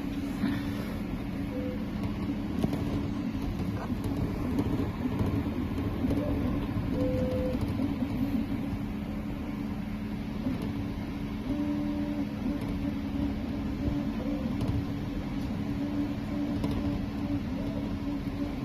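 CreatBot PEEK 300 3D printer running a print: a steady machine hum, with short whining notes from the stepper motors that come and go as the print head moves.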